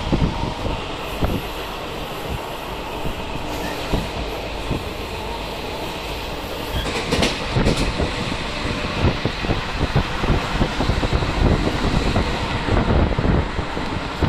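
Passenger train coach running at speed, heard from its open doorway: a steady rumble of wheels on the rails with rapid clickety-clack knocks that grow busier in the second half, and a couple of sharp clicks a little past halfway.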